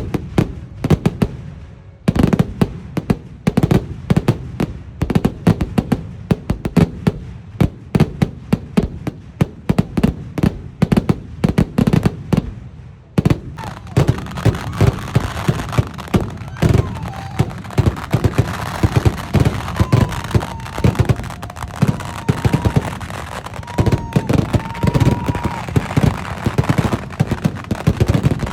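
Vedikkettu firecrackers going off in a rapid, dense string of bangs that thickens into an almost continuous crackling barrage about halfway through. A wavering high tone runs over the barrage in the later part.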